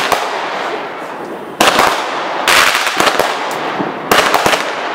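Consumer aerial fireworks going off in quick clusters of sharp bangs, about one cluster every second, each trailing off into a lingering echo.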